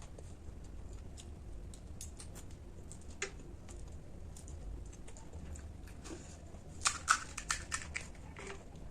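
Close-miked eating sounds: scattered small crisp clicks and crunches, with a quick cluster of sharper ones about seven seconds in.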